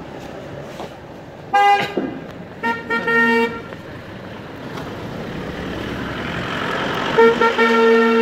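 Car horns tooting: a short beep a couple of seconds in, a lower horn sounding twice soon after, and a run of quick toots near the end. Under the horns, engine and tyre noise from a car grows louder as it comes up close and passes.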